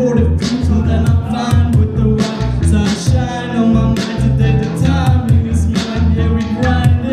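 Hip-hop beat with heavy bass and regular drum hits, with a singing voice over it.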